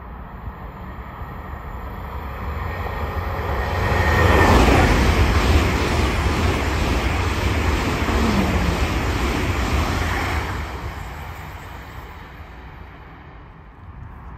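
ICE high-speed electric train passing at speed: a rushing noise that swells over about four seconds, stays loud for about six, then dies away. A brief falling whine sounds as it comes close, and another lower one near the middle.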